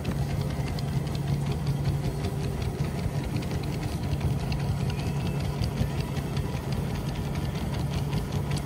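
Motorised dog treadmill running steadily with two small dogs trotting on its belt: a constant motor-and-belt hum with fast, light ticking over it.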